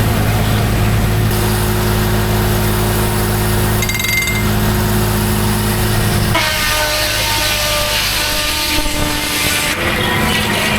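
Homemade circular sawmill running and sawing white pine, with a steady low drone. About six seconds in the sound shifts: the low drone drops away and a higher whine comes in.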